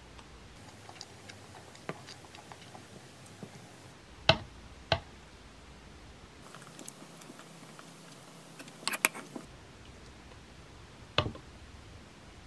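A few sharp clicks and knocks of a spoon against a bamboo bowl while eating fried rice, with softer clicks between. Single knocks come about four and five seconds in, a quick cluster of clicks around nine seconds and one more knock near the end.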